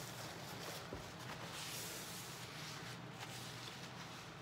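Close-up chewing of fried chicken with soft mouth sounds, and rustling from handling food and a sauce packet, with a sharp click about a second in.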